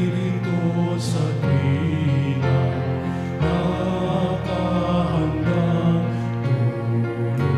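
Gospel choir singing a Tagalog worship song with band accompaniment of keyboard and drums, over a bass line that changes note about once a second.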